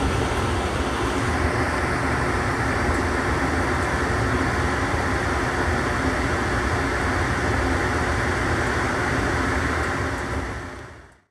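Steady cabin noise inside a JFK AirTrain people-mover car, an even rumble and hiss without voices, fading out near the end.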